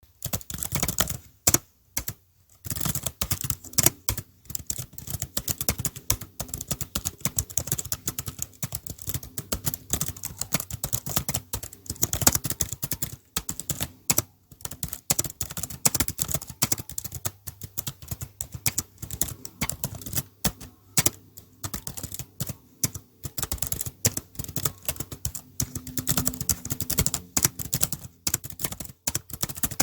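Typing on a computer keyboard: a fast, irregular stream of key clicks with brief pauses, now and then a louder single keystroke.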